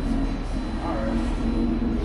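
Background music with short held low notes over a steady low hum.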